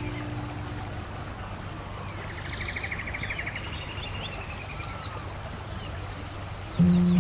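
Birds chirping in outdoor ambience, with a short rapid trill partway through and quick high chirps after it. Background music fades out about a second in and returns near the end.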